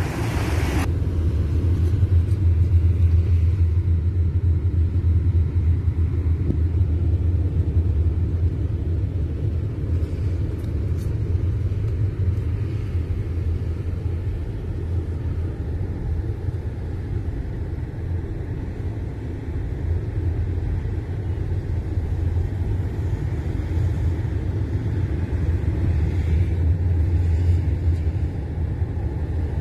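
Steady low rumble of road and engine noise inside a moving car's cabin, with a brief hiss in the first second.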